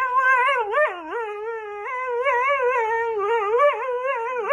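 Dog giving one long, wavering howl-whine, its pitch warbling up and down without a break and dipping briefly about a second in.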